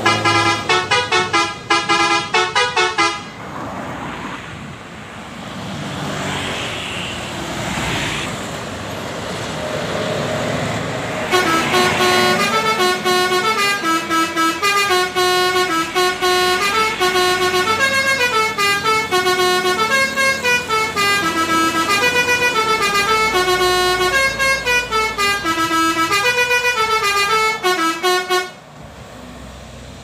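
Bus telolet horns, multi-note musical air horns, playing quick stepping tunes: one for the first few seconds, then the rush of a passing bus, then a long telolet melody from about eleven seconds in that stops shortly before the end.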